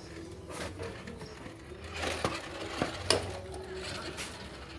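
Metal hand tools clinking and clicking against an air-conditioner unit's sheet metal and wiring as it is stripped down, with two sharper clicks about two and three seconds in.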